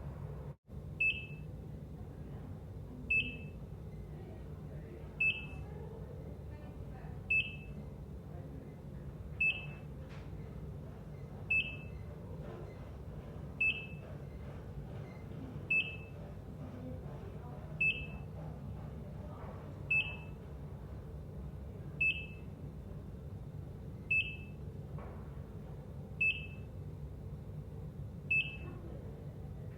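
ECG heart monitor beeping: a short high-pitched beep about every two seconds, fourteen times in all, over a steady low room hum. The background cuts out for a moment just under a second in.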